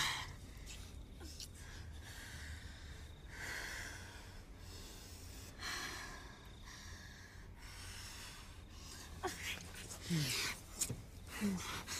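People breathing heavily in an intimate moment: long drawn breaths every two or three seconds, then quicker gasps with short voiced sighs from about nine seconds in.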